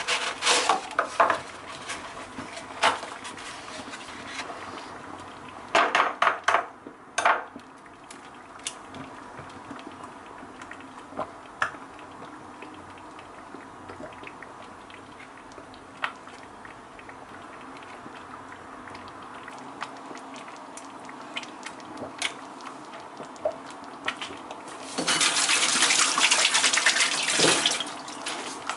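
Kitchen work: dishes and utensils clinking and knocking now and then, with a tap running for about three seconds near the end.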